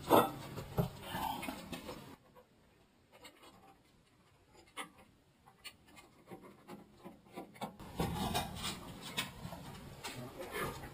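Hand work on a steel car-lift ramp and its bolts: a sharp knock at the start, then faint clinks, rubbing and a person's breathing. The middle few seconds are near silent before the faint clatter resumes.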